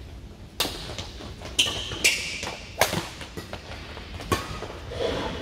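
Badminton rackets striking a shuttlecock in a rally: about five sharp, crisp hits at irregular intervals of roughly half a second to a second and a half, echoing in a large hall.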